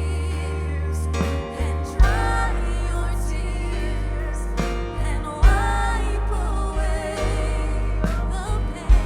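Live worship band of drums, bass guitar, electric guitar and piano playing under sung vocal phrases, with a heavy, steady bass and drum hits about every three and a half seconds.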